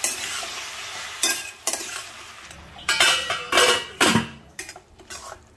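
A spatula stirring tomatoes, onions and cashews in a stainless steel kadhai over a light sizzle, knocking against the pan several times. About four seconds in a steel lid is set on the pan with a ringing clank, and the sound drops after.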